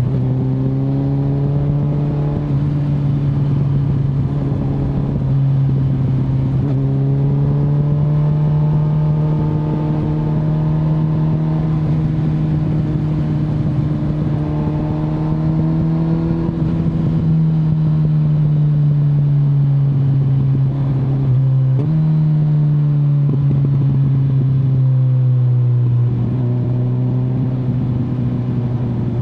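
Kawasaki Z900 inline-four engine running on the move, its pitch drifting slowly up and down and jumping suddenly a few times, as at gear changes, with rough wind noise underneath.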